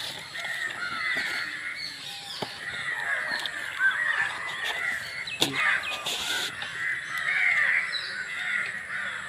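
Crows cawing, many short calls overlapping throughout. A couple of sharp clicks and a short rustle come in the middle, fitting the sound of handling a clip-on microphone against a shirt.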